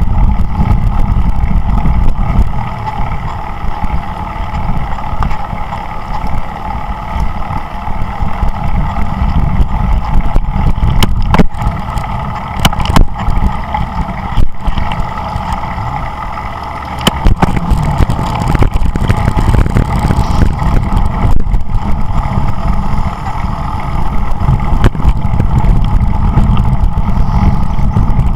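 Wind buffeting the microphone of a camera riding on a bicycle in motion, a loud continuous low rumble, with road and tyre noise and a few scattered clicks.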